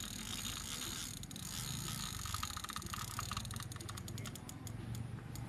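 Fishing reel clicking rapidly in runs as a hooked arapaima is played on the line, over a low steady hum.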